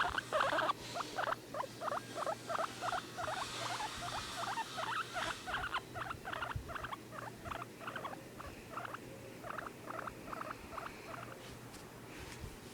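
Guinea pig calling with a long run of short, repeated squeaks, about two or three a second, growing fainter and stopping near the end.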